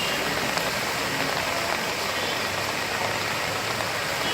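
Heavy rain falling steadily: an even hiss that holds at one level throughout.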